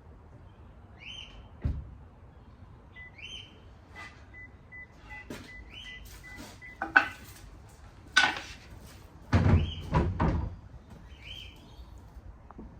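A bird chirping short rising notes every couple of seconds, among several knocks and clunks. The knocks are loudest in a cluster about eight to ten seconds in.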